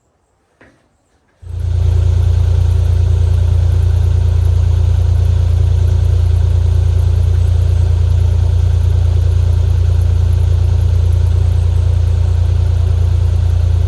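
Kubota KX040 mini excavator's diesel engine running steadily with a deep, even hum. It cuts in suddenly about a second and a half in, after near silence.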